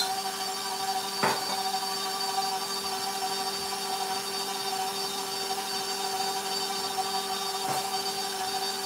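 Electric stand mixer running at a steady speed with a constant motor whine, its flat beater mixing chocolate buttercream frosting in a stainless steel bowl. Two light knocks, about a second in and near the end.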